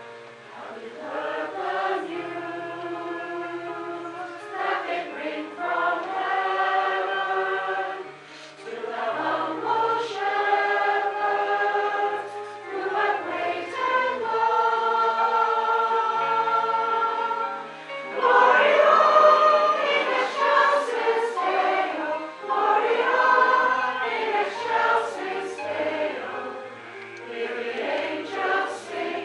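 Mixed choir of women's and men's voices singing a piece in parts, in held phrases with short breaths between them. It swells to a louder, fuller passage about two-thirds of the way through.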